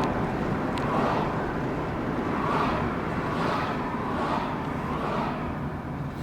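Car on the move: steady engine and road rumble, with a hiss that swells and fades several times.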